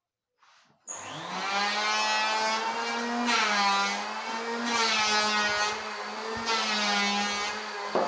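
Bosch table saw switched on about a second in, its motor spinning up to a steady pitched whine. The pitch then sags and recovers several times as the blade takes load, as when wood is fed through for tenon cuts.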